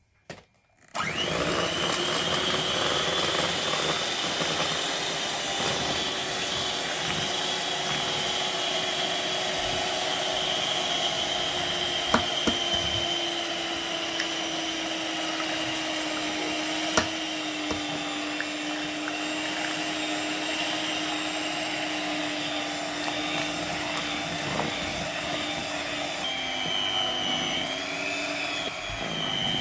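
Electric hand mixer switched on about a second in, its motor running with a steady whine as the twin beaters whisk pancake batter in a plastic bowl. The pitch sinks slightly over time, and a couple of sharp clicks stand out.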